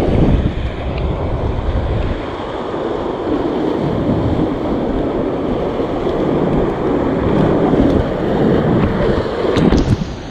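Sea waves breaking and washing over shoreline rocks in swells that rise and ease, with wind buffeting the microphone.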